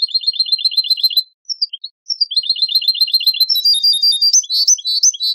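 Recorded European goldfinch song from a Moroccan Ceuta-style training tape: fast trills of repeated high notes, about nine a second, a short break with a few scattered notes, then more trills running into varied twittering phrases.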